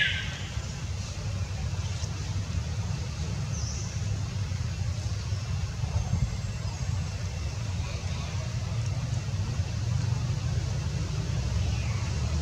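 Steady low rumble with a couple of faint, short high-pitched squeaks from a young macaque: one about four seconds in, and a falling one near the end.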